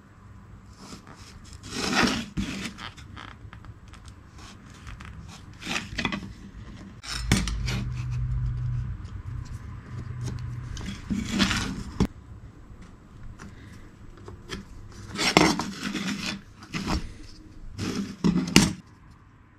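Tools and pieces of wood being handled on a workbench: a series of separate knocks, clinks and scrapes, with a low hum lasting about three seconds near the middle.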